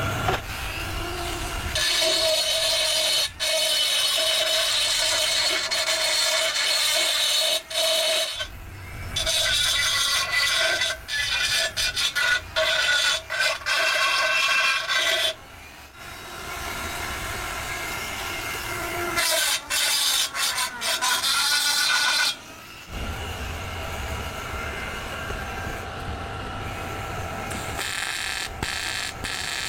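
Wheel-repair machine running with a low hum, broken by three spells of loud, harsh rubbing or grinding noise, each several seconds long, as metal works against the alloy wheel.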